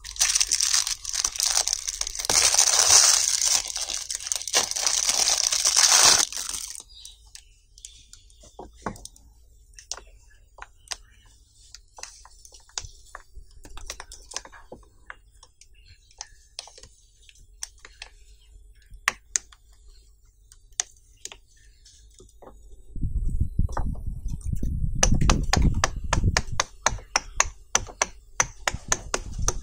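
A clear plastic wrapper crinkling as it is taken off a silicone pop-it fidget toy, for about the first six seconds. Then the toy's silicone bubbles being pressed in one by one, a string of separate soft pops and clicks, which become fast and dense over a low rumble in the last several seconds.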